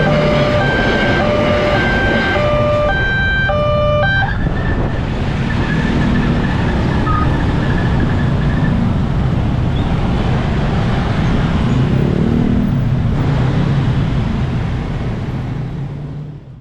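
Railway level-crossing alarm sounding two alternating electronic tones, each about half a second long. It stops about four seconds in, once the train has passed. Road traffic follows, with vehicle engines running steadily.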